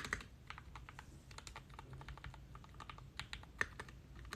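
Typing on a mechanical keyboard: irregular clicking keystrokes, a quick cluster at the start and scattered strokes after.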